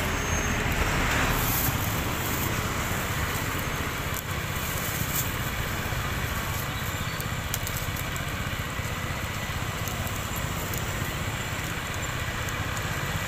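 Steady roadside street noise with engines running, plus light crackling and ticking from pork skewers grilling over a charcoal fire. A plastic bag rustles briefly near the start.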